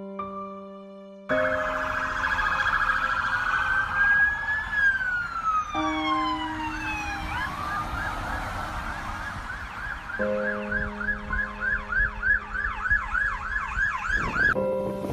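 Electronic emergency-vehicle siren: a slow wail rising and falling, then switching to a fast yelp of about three sweeps a second, over soft piano music. Near the end it cuts to wind noise.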